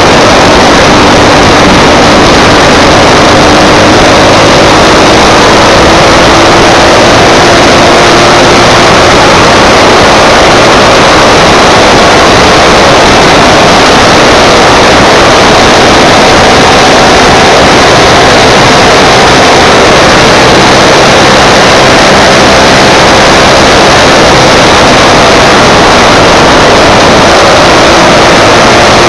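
Jawa motorcycle engine running steadily while riding on the open road, its pitch drifting slowly up and down, under a loud, even rush of wind and road noise.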